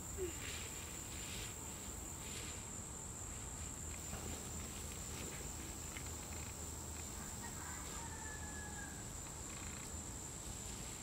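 Steady high-pitched chirring of insects in a field, crickets or similar, with faint intermittent rustles of paraglider nylon being bundled.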